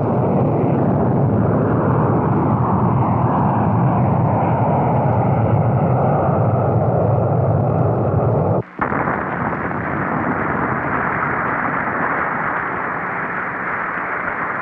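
Solid-fuel rocket motor of a Polaris missile firing at lift-off and climb, a loud, dense, steady noise. Nearly nine seconds in it cuts out for an instant, then carries on brighter and hissier.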